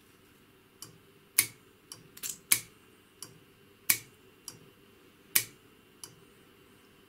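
24 V aircraft solenoid valve clicking as it is switched on and off by touching the supply leads to its terminals. There are sharp clacks about every one and a half seconds, with lighter clicks in between.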